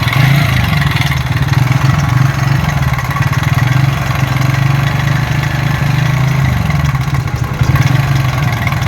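TVS Ntorq 125 BS6 scooter's single-cylinder engine idling with a quite loud mechanical noise from inside the engine. The mechanic suspects the timing chain tensioner.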